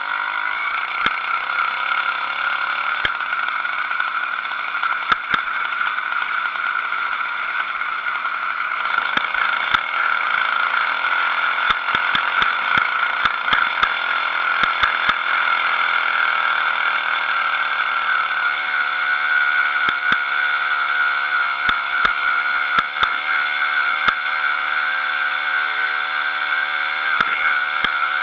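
80cc two-stroke motorized bicycle engine running at riding speed, a steady high-pitched buzz, with frequent clicks and knocks from the bike shaking over the road. A lower engine note joins about two-thirds of the way in.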